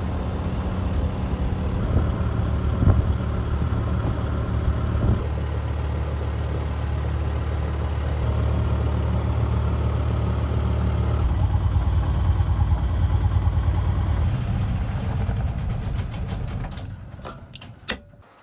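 A sailboat's inboard Bukh marine diesel runs steadily while motoring. Near the end it winds down and stops as it is shut off at the instrument panel, and a few sharp clicks follow.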